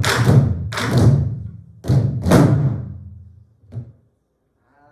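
An ensemble of Korean sori-buk barrel drums struck together in heavy unison strokes, each ringing out in the hall, followed by a lighter stroke near the end.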